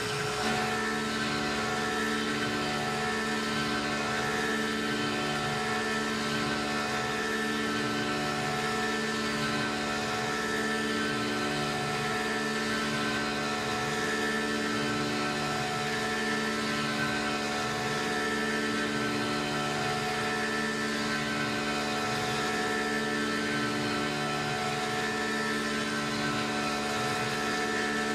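Tormach PCNC 1100 CNC mill cutting a deep pocket in an aluminium block with an end mill under flood coolant. The spindle and cut make a steady hum with several held tones, unchanging throughout.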